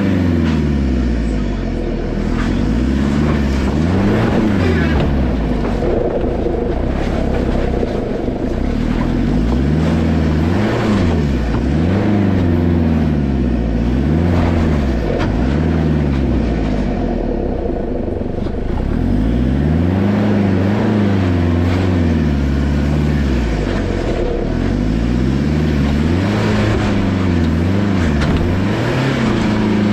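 2003 Nissan Patrol Y61's 3.0-litre turbo-diesel engine under load climbing over rocks. Its pitch rises and falls again and again, every couple of seconds, as the throttle is worked.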